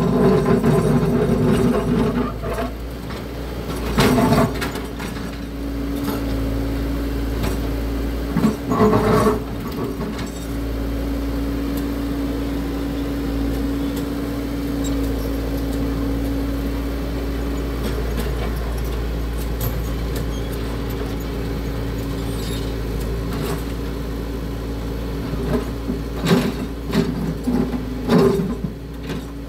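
Caterpillar excavator's engine running steadily with a continuous whine, broken by loud clanks about four and nine seconds in and a rapid run of them near the end as the machine works out fence concrete.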